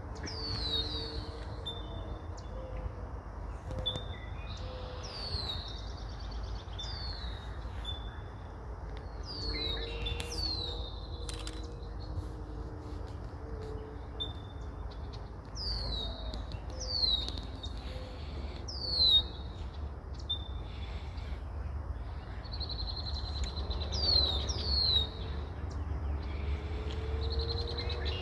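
Small birds chirping: many short, high notes that slide down in pitch, repeating every second or so, over a steady low rumble.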